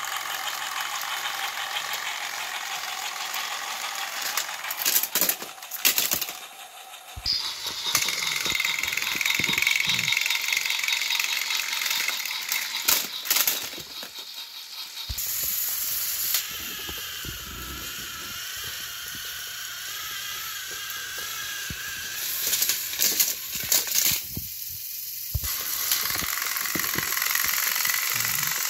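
Battery-powered Thomas & Friends TrackMaster toy engines, their small electric motors whirring and gears grinding as two engines push head to head on plastic track. Clusters of sharp clicks and rattles come in several times, and the running sound drops out briefly a few times.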